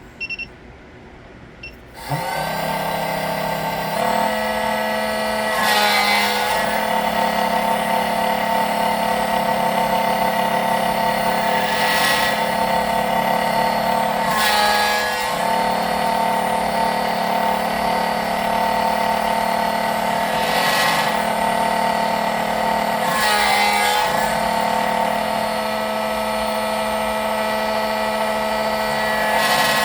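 SEC-9 key-cutting machine's cutter motor starting up about two seconds in and running steadily while it cuts a Tibbe key, its tone briefly changing about six times as the cutter works the blade.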